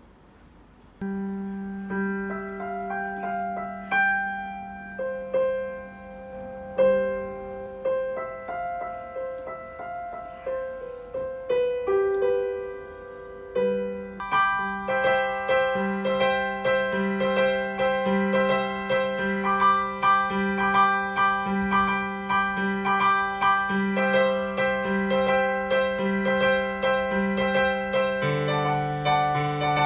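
A Yamaha digital piano being played. About a second in, a slow melody begins over a held low chord; from about halfway it turns into a busier pattern of quick repeated notes, and a lower chord comes in near the end.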